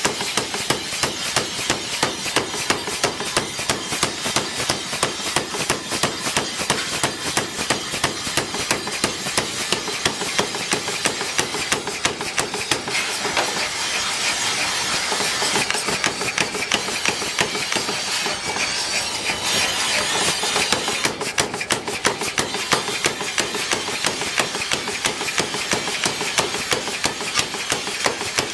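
Mechanical power hammer striking a red-hot steel cleaver blank in a rapid, steady run of blows, about four a second.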